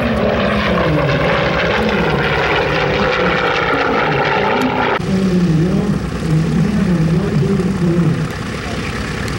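Douglas A-1 Skyraider's big radial engine and propeller droning loudly in a low pass, the pitch wavering up and down. About halfway through the sound changes abruptly to a somewhat quieter propeller-engine drone.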